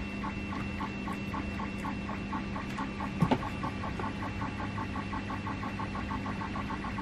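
Small hot-air gun running with a steady fan whir and a fast, even pulsing, heating shrink tubing on Deans plug battery leads. One sharp click about three seconds in.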